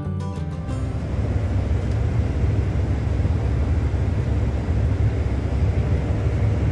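New Holland combine harvester running steadily while cutting wheat, a constant low rumble. A guitar music track ends in the first second.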